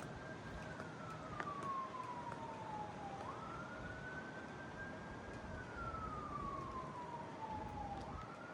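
Emergency-vehicle siren wailing faintly in a slow cycle: a quick rise, a held high note, then a long slide down, starting a new rise twice. A steady hiss lies beneath.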